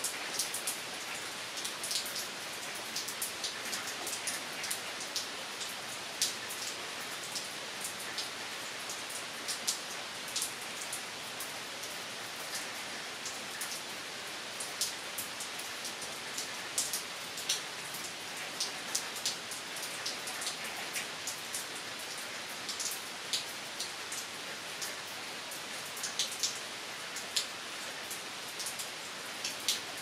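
Steady rain falling on trees and leafy undergrowth: an even hiss with frequent sharp drop hits close by.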